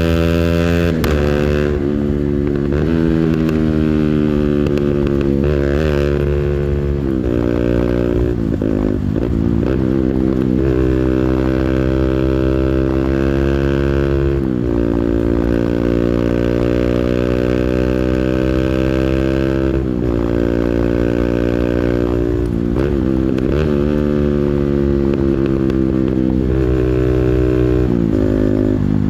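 A 200cc engine run hard near its rev limiter. Its pitch holds high for several seconds at a time, then dips and climbs again repeatedly, around nine times in all.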